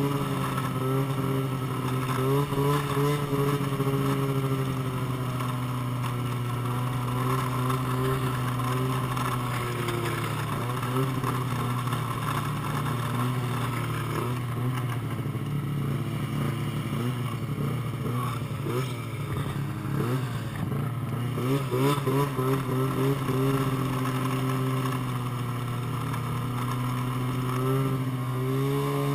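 Dirt bike engine running at low speed, its revs rising and falling through the middle as the throttle is worked.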